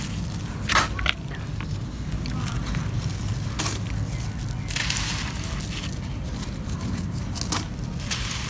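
Crumbly grey cement-sand chunks crushed in a bare hand, with gritty crumbs and dust trickling down. There are sharp crunches about a second in and a few more later, over a steady low rumble.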